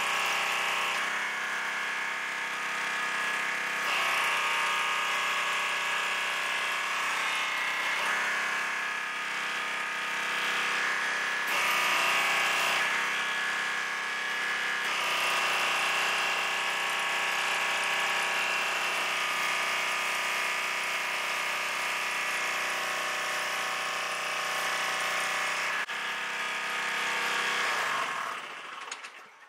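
Gas pressure washer's small engine running steadily, its note shifting every few seconds as the load changes. It shuts off near the end and winds down.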